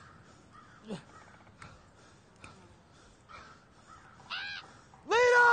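Crows cawing in woodland: faint, scattered caws at first, then a short caw and a loud, drawn-out caw near the end that rises and falls in pitch.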